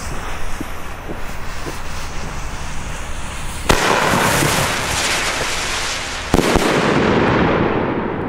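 Ground-launched firework firing: a fizzing fuse with small crackles, then two sudden bangs about two and a half seconds apart. Each bang is followed by loud hissing and crackling, which slowly fades after the second.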